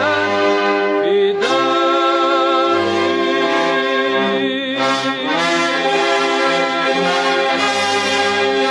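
Orchestra with prominent brass playing sustained chords in the instrumental close of a 1950s Egyptian patriotic anthem, in an old mono radio recording.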